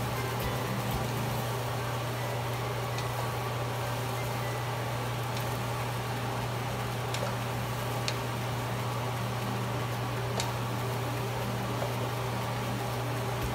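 Stir-frying bitter gourd and egg in a frying pan: faint sizzling with a few light clicks of a wooden spatula against the pan, over a steady low hum.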